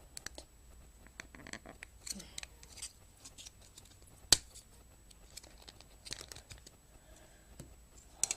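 Plastic packaging being bent and handled to free a small device from its holder: scattered rustles, scrapes and small clicks, with one sharp plastic snap about four seconds in.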